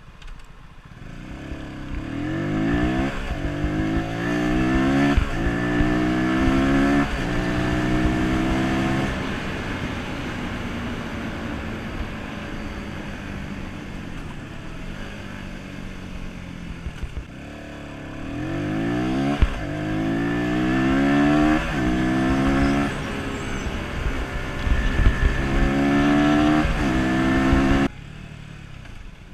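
Stock-exhaust Voge Brivido 125R single-cylinder motorcycle engine accelerating hard through the gears twice. Its pitch climbs and drops back at each upshift, with a steadier cruising stretch in between. The engine sound falls away sharply near the end.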